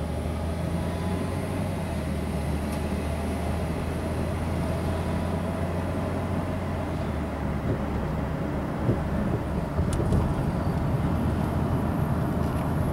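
Ford Taurus driving, with a steady low engine and road drone.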